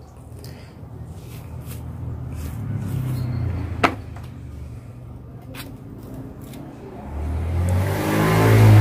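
Motor vehicle engines passing close by. A low engine hum swells and fades in the first few seconds, then a louder one builds to its loudest at the very end. A single sharp click comes about four seconds in.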